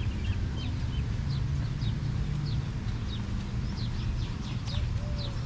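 Small birds chirping in park trees: a run of short, high, downward-sliding notes about every half second, over a steady low rumble. Near the end a few lower, short arched calls join in.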